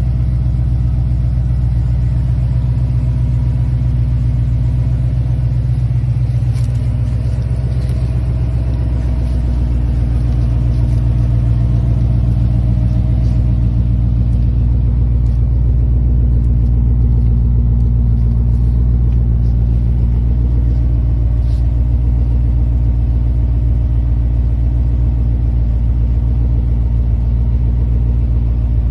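Classic Ford Mustang's engine running steadily at idle, a deep, even sound with no revving.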